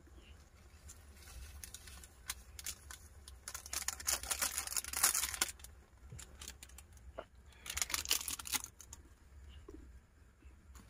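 Rustling and crinkling handling noises with scattered clicks, as of something being unwrapped or handled. The rustling is loudest in two stretches, one in the middle and one about three-quarters through, over a steady low rumble.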